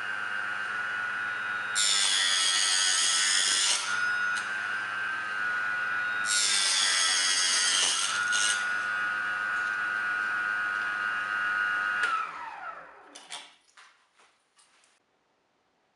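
Small benchtop table saw running with a steady whine while a thin wooden strip is ripped on it: two cuts, each about two seconds long and louder and harsher than the idle whine. About twelve seconds in, the motor is switched off and the whine falls away as the blade spins down, followed by a few light clicks.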